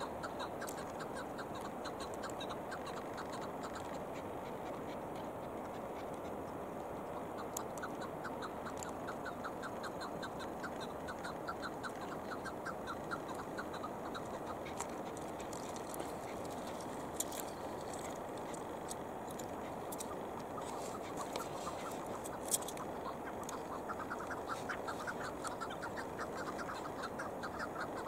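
Chukar partridge calling: rapid runs of short clucking chuk notes in several bouts. A couple of sharp clicks stand out near the end.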